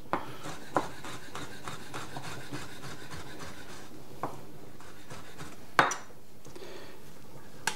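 Chef's knife slicing cured wild boar ham into thin strips on a wooden cutting board: a steady run of quick, light cutting strokes with the blade rubbing on the wood, and a few sharper knocks of the blade on the board, the loudest just before six seconds in.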